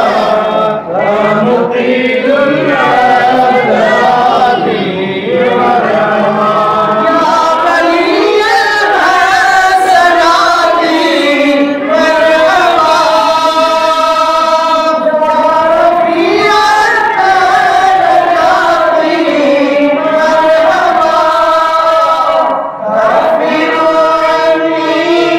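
Mawlid recitation: a group of men chanting devotional verses together, led by a reciter singing into a microphone. The chant runs continuously, with short breaks between lines.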